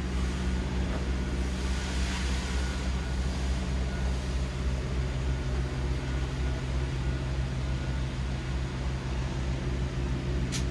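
A steady low machine hum with a slight regular throb, under a faint hiss that swells a little around two to three seconds in.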